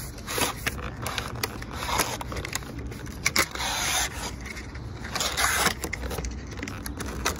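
Cardboard and plastic packaging scraping and rustling as new wiper blades are pulled out of their box, with scattered sharp clicks and crackles.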